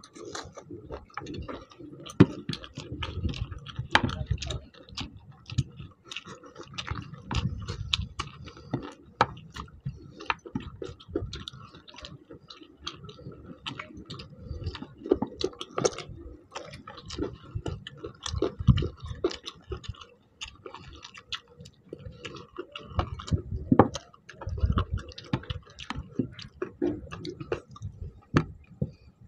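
Two people eating chicken curry and rice with their hands: chewing, with many short clicks throughout.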